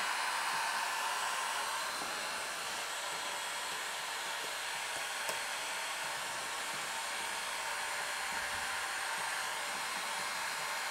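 Bosch hot-air heat gun blowing steadily, heating vinyl wrap film so it softens, stretches and sticks. It is a little louder in the first couple of seconds.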